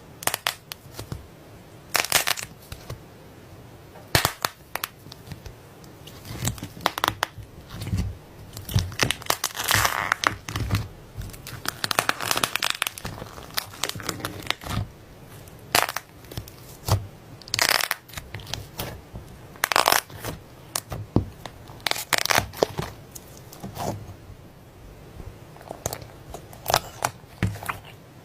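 Slime being squeezed and pressed by hand, giving irregular crackling and popping clicks in uneven clusters.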